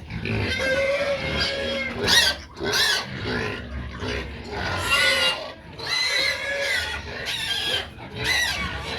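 Hungry pigs squealing loudly and repeatedly, high-pitched calls bending in pitch and overlapping, as they clamour for feed.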